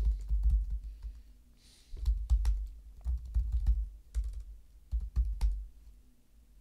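Keystrokes on a computer keyboard, typing a terminal command in several short bursts with pauses between. Each key gives a sharp click with a low thud, and the typing stops near the end.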